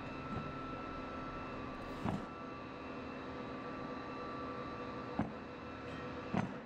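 Steady workshop hum with a few faint steady tones, and three light knocks as a tack-welded steel idler bracket and a steel rod are handled on a wooden pallet: about two seconds in, past five seconds, and near the end.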